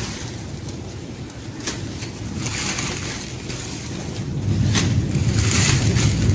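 Dry leaves and stems rustling and crackling in short bursts as dried-out garden plants are pulled up by hand, over a low rumble of wind on the microphone that grows louder near the end.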